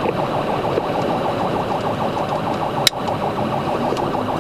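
Police cruiser's siren in a fast yelp, repeating quick pitch sweeps several times a second, over the cruiser's engine and road noise at high speed. A single sharp click about three seconds in.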